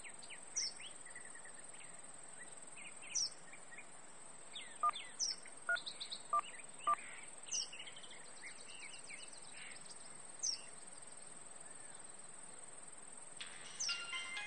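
Birds chirping over a steady outdoor hiss: short, high, falling chirps every couple of seconds, with a quick run of clear call notes in the middle. Near the end, a tune with many steady notes starts up.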